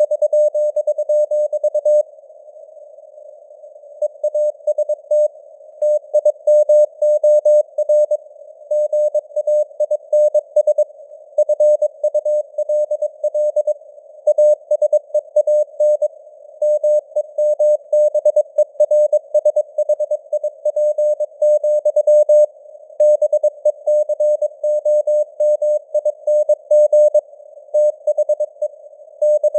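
Morse code sent at 22 words per minute as a single tone of about 600 Hz, keyed on and off in dots and dashes over a narrow band of simulated radio hiss. There is a pause of about two seconds near the start and shorter pauses later.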